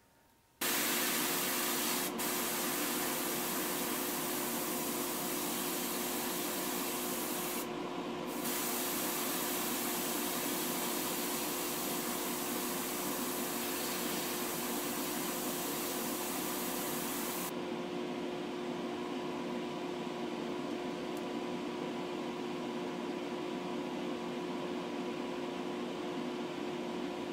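Airbrush hissing as it sprays paint onto a small diecast truck body, with a short break about eight seconds in, then stopping about two-thirds of the way through. A steady mechanical hum runs underneath throughout.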